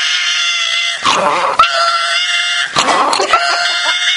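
Old pug making a long, continuous, motor-like grumbling growl, broken by short pauses about a second in and near three seconds. It is protesting at being handled for its ear medicine.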